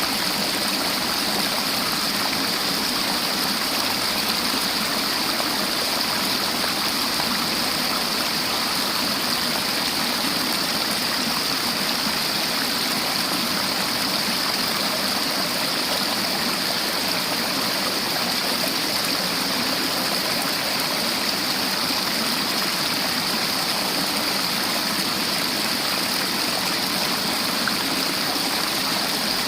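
River water flowing and splashing over rocks in a steady, unbroken rush with a hissy top.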